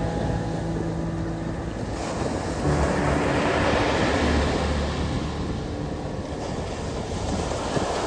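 Gulf of Mexico surf: small waves breaking and washing up the sand, with a louder surge of wash from about two seconds in.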